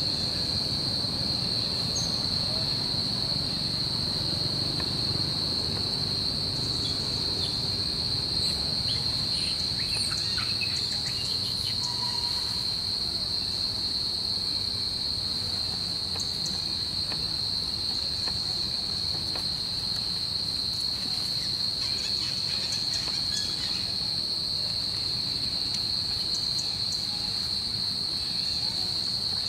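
Insects droning steadily at one high pitch, with a fainter higher tone above it, over a low rumble and a few faint clicks.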